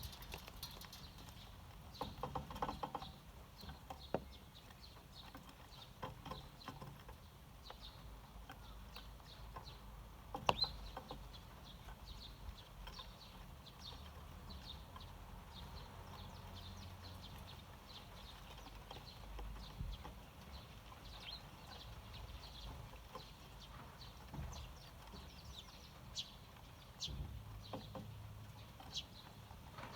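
Eurasian tree sparrows chirping: many short high calls scattered throughout, with a few sharp taps or clicks in between.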